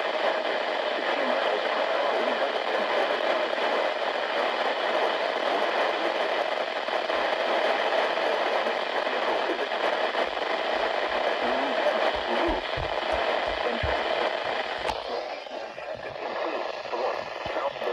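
Radio static: a weak, noisy radio signal hissing steadily, with irregular low thumps from about halfway through. About three seconds before the end the noise thins out and a faint steady tone comes in.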